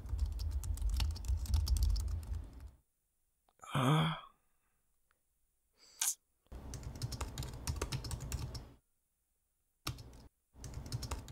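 Laptop keyboard typing in bursts of rapid key clicks, with pauses between runs. A person gives a short sigh about four seconds in.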